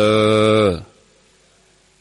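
A Buddhist monk's voice intoning in Thai, holding the last syllable of a phrase at a steady pitch for nearly a second, then a pause with only faint background.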